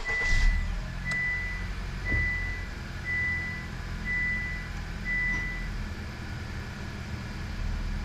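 Car warning chime beeping six times, about once a second, then stopping, over the steady low hum of the Honda Accord's engine running.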